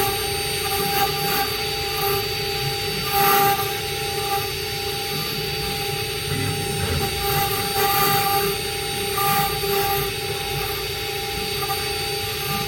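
Stone CNC router running, its spindle giving a steady high whine over a noisy hiss, with a few short louder surges of cutting noise, about three seconds in and again near eight and nine seconds.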